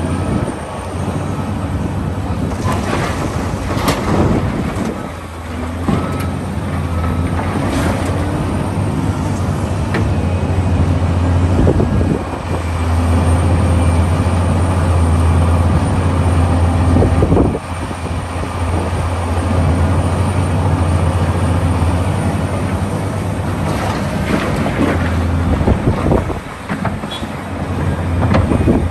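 Large excavator digging: its diesel engine runs with a steady low drone under load, with occasional clanks and scrapes through it, clustered around a few seconds in, midway and near the end.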